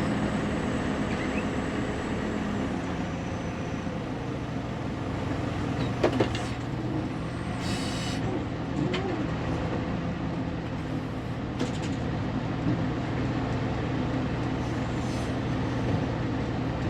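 Backhoe's diesel engine running steadily under load while it loads dirt, with a few sharp knocks about six seconds in and again near the end, and a short hiss near eight seconds.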